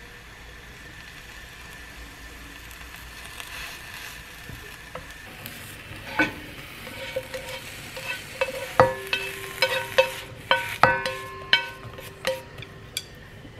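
Dry granules poured from a plastic bag into a ceramic bowl, a soft hiss. Then, from about six seconds in, a wooden spoon scoops chili powder from a glass jar, tapping and clinking against the jar and bowl in a run of sharp knocks, some followed by short ringing tones.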